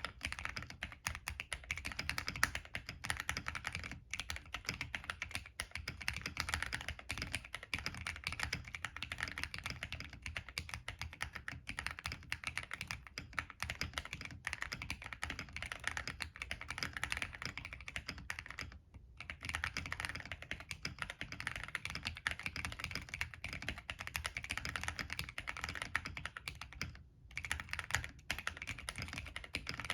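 Steady fast typing on a plateless MK870 tenkeyless mechanical keyboard with NK Cream linear switches and PBT Cherry-profile keycaps: a dense stream of key clacks, with two short pauses, about two-thirds of the way through and again near the end.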